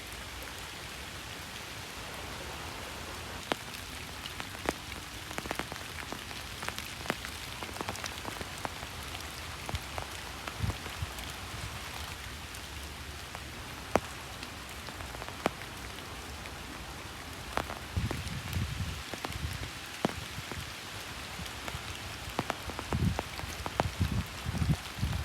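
Steady rain falling, with many separate drops tapping sharply close by. Low rumbles come in briefly about two-thirds of the way through and again near the end.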